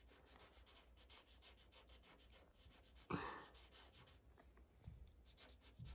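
Faint scratching of a black Sharpie permanent marker colouring in on paper in quick repeated strokes, with one short louder puff of noise about three seconds in.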